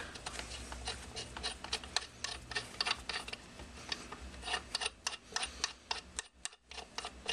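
Irregular light metallic clicks and ticks, several a second, as steel bolts are handled and tried against an automatic transmission's bellhousing holes, over a low steady hum.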